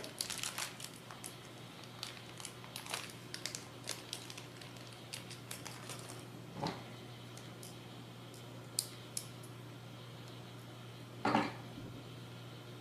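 Small screw being driven into a plastic pan-and-tilt camera mount with a small screwdriver, with scattered faint clicks and ticks of plastic parts being handled. There is a louder knock about eleven seconds in, over a steady low hum.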